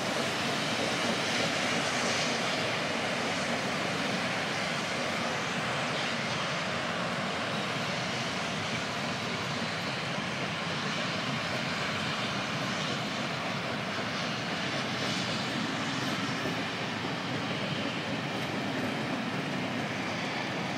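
Steady rumbling rush of a steam-hauled train's coaches rolling past on the rails, easing off slightly as the train draws away.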